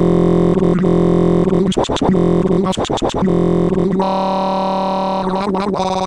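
Loud electronic synthesizer sound: steady layered tones that warble in pitch around the middle, then shift to a different chord about four seconds in.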